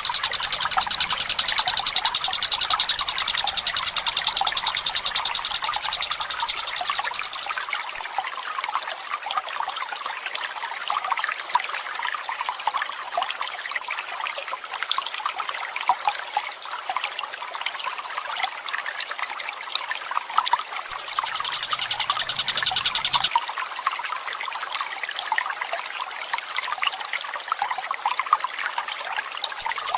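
Trickling water running steadily, with a Tengkek Buto bird giving a fast, high rolling trill during the first several seconds and again briefly about two thirds of the way through.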